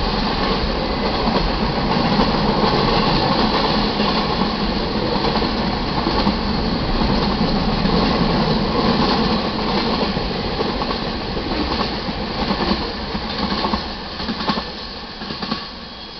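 Freight cars of a manifest train rolling past at a grade crossing: a steady rumble of wheels on rail with clicking wheel beats. The sound grows sparser and fades near the end as the last car passes.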